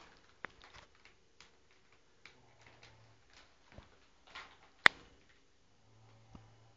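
A sleeping woman snoring, a low droning snore of about a second on her breaths, twice, which the uploader puts down to her adenoids blocking her nose. Sharp clicks are scattered through, the loudest about five seconds in.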